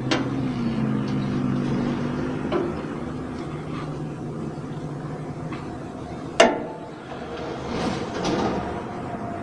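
Clinks and knocks of a strap wrench and hands working loose the spin-on oil filter of a Komatsu PC200-8 excavator, with one sharp metallic clank about six seconds in and a rustle near the end as the filter is wrapped in a rag. A steady low engine-like hum runs underneath.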